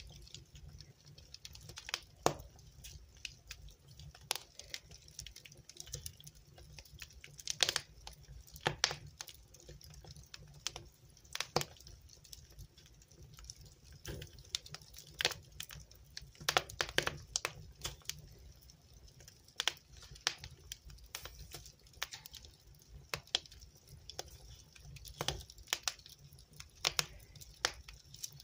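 Wood fire burning in a fireplace: irregular sharp crackles and pops, a few a second and unevenly spaced, over a low steady rumble.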